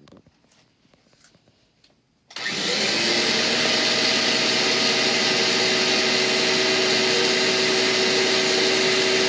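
Vacuum cleaner switched on about two seconds in. Its motor spins up with a short rising whine, then runs loud and steady, with a constant whine over a rushing hiss of air. A few faint clicks come before it starts.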